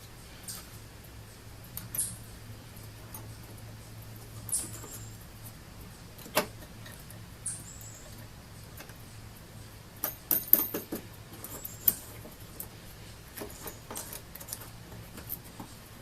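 Scattered light metallic clicks and clinks of bolt hardware and hand tools being handled, with a busier run of clinks about ten seconds in.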